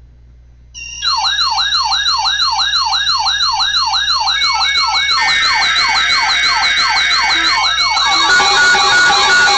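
Electronic siren wailing in a fast up-and-down yelp, several sweeps a second, starting about a second in. Steady tones and a beeping tone join around halfway and again near the end.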